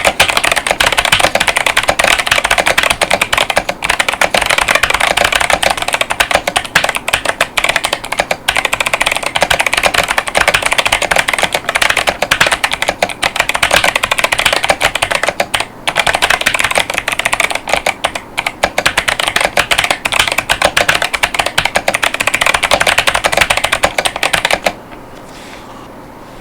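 Fast, continuous typing on an 8BitDo Fami Edition mechanical keyboard with Kailh Box White clicky switches and PBT keycaps: a dense stream of sharp key clicks that stops about a second and a half before the end.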